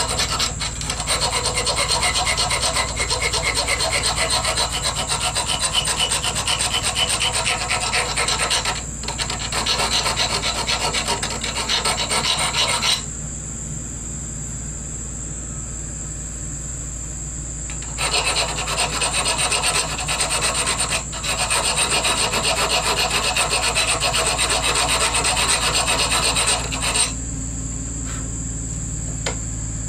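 Round rat-tail file rasping in quick back-and-forth strokes across a soft metal ring held in a vise, cutting a groove into it. Two long spells of filing, the first with a brief break partway through, separated by a pause of several seconds, each stopping abruptly.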